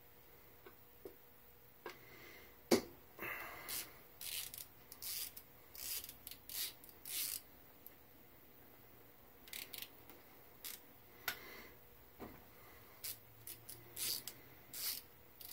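Scattered faint clicks and scrapes of a small hand driver working the bolts on the metal body of a Kubota three-cylinder diesel's Zexel injection pump as they are loosened. There is one sharper knock about three seconds in.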